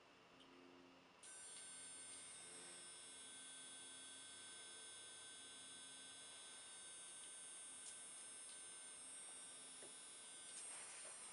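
Digital helicopter swashplate servos powered through a Spektrum AR7210BX flybarless unit, giving a slight, steady, high-pitched buzz that starts suddenly about a second in. The buzz is quite normal for digital servos and flybarless units holding position.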